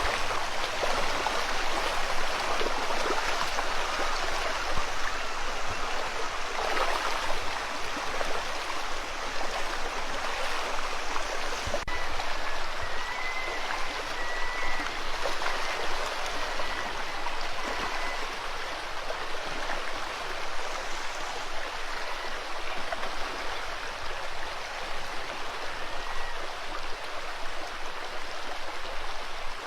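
Rushing river water, a steady, even rush.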